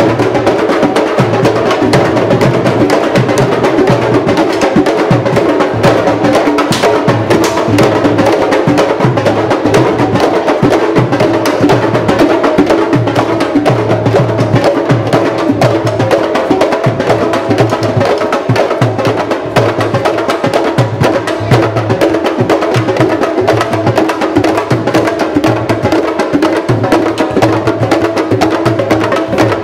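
Candombe drum ensemble of chico, repique and piano drums playing a steady, dense rhythm, with many sharp clicks among the drum strokes.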